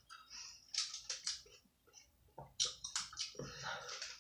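Long paper grocery receipt rustling and crinkling as it is handled, in short irregular bursts.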